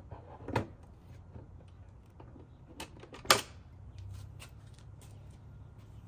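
Aluminium top box on a MIK adapter plate being set down onto a MIK quick-release mount: two knocks as it touches down, light rattles and ticks as it is slid into place, then one sharp click a little over three seconds in as the mount latches.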